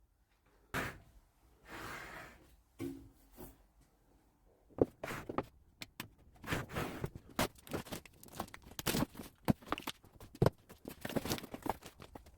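Unboxing sounds: packaging being handled and torn, with thunks and knocks as the welding machine's parts and accessories are lifted out. A few scattered knocks and rustles at first, then a busier run of clicks, knocks and rustling from about five seconds in.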